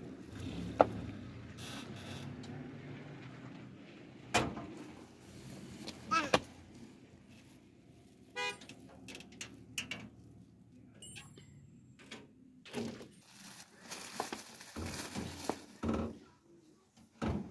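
Metal door being unlatched and opened: a series of sharp clicks and knocks, the loudest about a second in, with a quick rattle near the middle.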